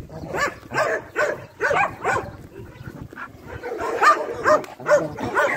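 Dogs barking: a run of short barks, a pause of about a second in the middle, then several more barks.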